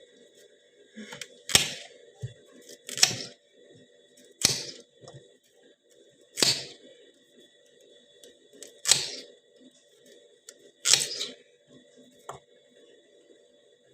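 Kitchen knife chopping through a raw carrot onto a cutting board: about seven slow, separate chops, one every one and a half to two and a half seconds.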